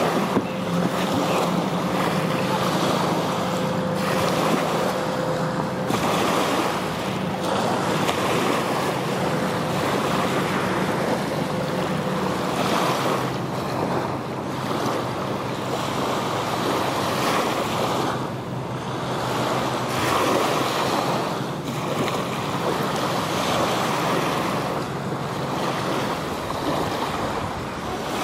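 Wind buffeting the microphone over the wash of choppy lake water. A steady motorboat-type engine hum runs under it through the first half and fades out about halfway.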